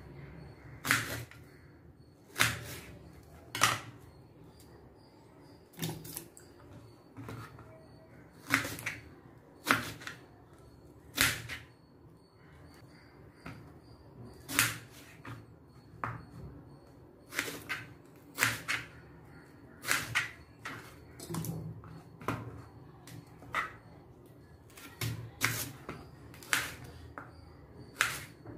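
Kitchen knife cutting peeled raw green banana (plantain) into pieces on a plastic cutting board. Each cut goes through and taps the board, giving sharp irregular knocks about once a second, sometimes two in quick succession.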